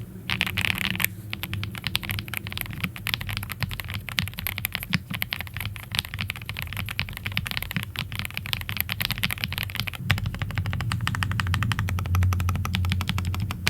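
Typing test on a Keychron C3 Pro TKL mechanical keyboard with Keychron Super Brown switches and thick double-shot PBT keycaps: a dense, continuous run of fast key clicks.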